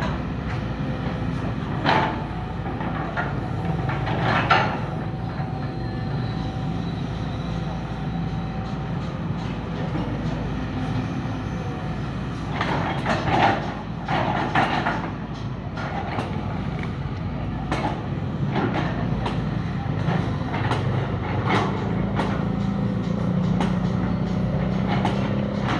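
Excavator's diesel engine running steadily while it digs mud, with scattered metallic clanks and knocks from the arm and bucket, and the engine note climbing under load near the end.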